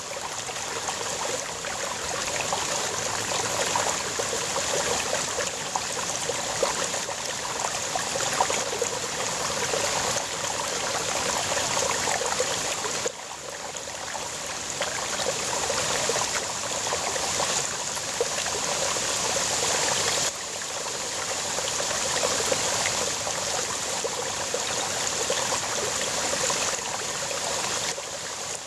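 Small rocky brook babbling, with continuous rushing and gurgling water flowing over and between stones. The level drops suddenly about 13 seconds in and again about 20 seconds in, then builds back up.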